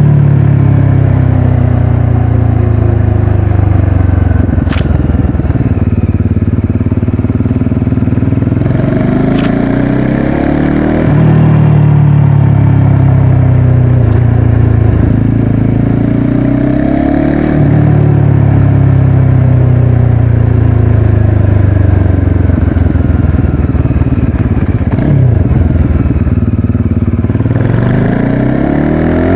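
Motorcycle engine running under way. Its pitch climbs quickly three times and sinks slowly in between as the throttle and gears change. Two short clicks are heard in the first ten seconds.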